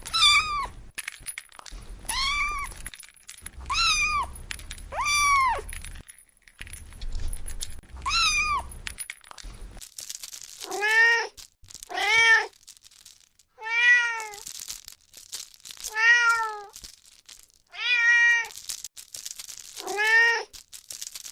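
Kitten meowing over and over in short arched cries, about five thin high-pitched meows, then about ten seconds in a lower-pitched run of about seven meows spaced evenly a second and a half apart.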